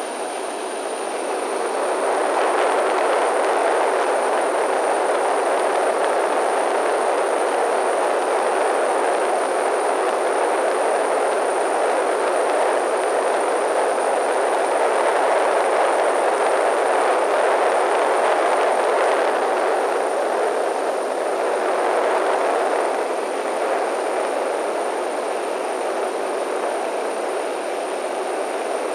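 Steady in-flight cabin noise of a Cessna 208B Caravan: its single turboprop engine and propeller droning evenly together with airflow over the airframe, heard inside the cockpit. It grows a little louder about two seconds in, and a faint thin high whine runs under it.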